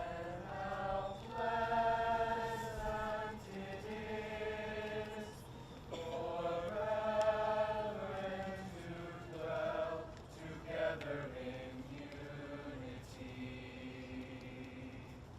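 High school choir singing, holding long notes in phrases with short breaks between them.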